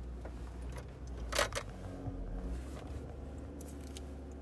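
Mercedes-Benz G-Class engine running as a low, steady hum heard inside the cabin while the SUV crawls up a very steep metal ramp under load, with two short knocks about a second and a half in.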